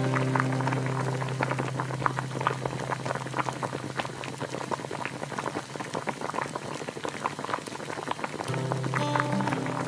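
A pot of soup bubbling at a boil: many small irregular pops. Soft background music plays under it, fading out early and coming back near the end.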